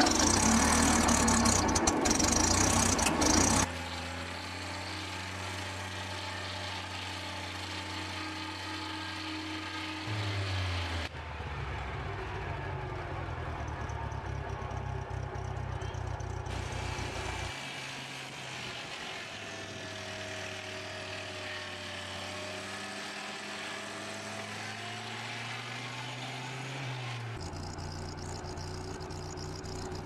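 Sawmill machinery: a circular saw blade spinning loud and harsh for the first few seconds, then engine-driven sawmills running steadily, the sound changing abruptly several times from one machine to the next.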